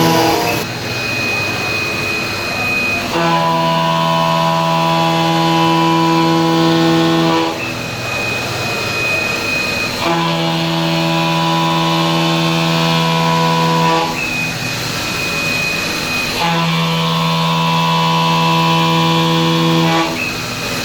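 BT30-spindle CNC milling machine making repeated cutting passes. Its sound switches back and forth about every few seconds between a high, thin whine and a lower, steady cutting tone with many overtones, repeating in an even cycle three times.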